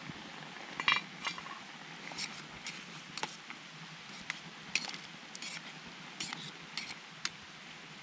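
A utensil stirring food in a small metal camp pan, with irregular sharp clinks of metal on metal.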